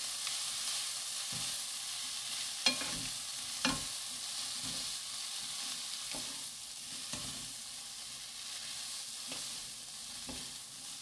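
Shredded bellflower root stir-fried with two wooden spatulas in a nonstick wok, sizzling steadily in oil on the pan's residual heat after the burner is switched off. Wood knocks and scrapes on the pan come at irregular moments, the two sharpest about three and four seconds in.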